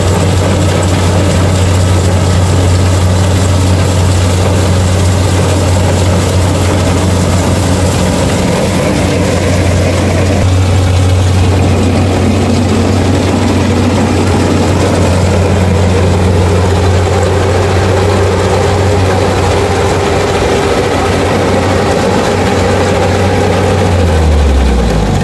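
Kubota DC-70 combine harvester cutting rice, its diesel engine running loud and steady under load. Near the end the engine note drops in pitch.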